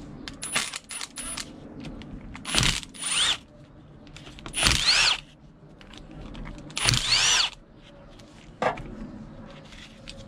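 Cordless drill undoing the cover bolts of a Ford Transit diesel vacuum pump: a few short blips of the trigger, then three longer runs, each winding up and down in pitch. A sharp knock comes near the end.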